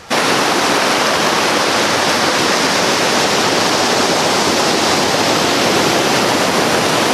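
River rapids rushing over rock ledges: a loud, steady rush of white water that starts suddenly.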